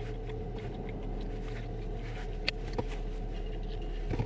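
Car engine idling, a steady low hum heard from inside the cabin, with a couple of small clicks about halfway through.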